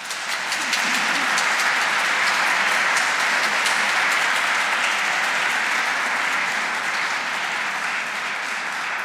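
Audience applauding: clapping that builds within the first second, holds steady, then begins to die away near the end.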